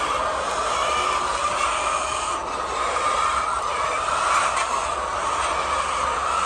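Steady din of a large flock of laying hens clucking and calling all at once, with a low hum underneath.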